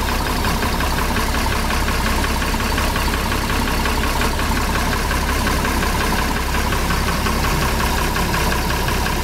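Six-cylinder engine of a Claas Matador Gigant combine running steadily and evenly, in good running order.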